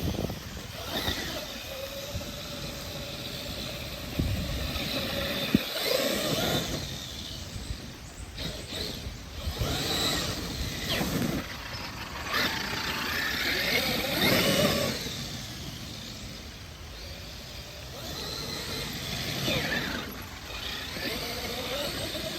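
Radio-controlled truck's electric motor whining up and down in repeated bursts of throttle as it is driven.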